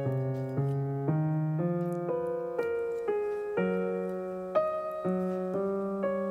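Background piano music: a gentle sequence of notes over a low bass line, a new note or chord about every half second.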